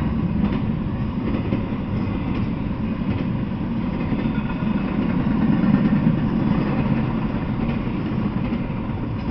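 Double-stack intermodal container freight train rolling past at steady speed: a continuous low rumble of wagons and wheels on the rails.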